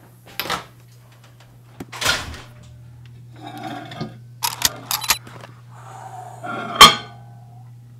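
Microwave oven being loaded: its door opened, a ceramic cup set down on the glass turntable, and a run of clicks and knocks from the door and controls, the loudest a sharp knock near the end. A low steady hum runs underneath.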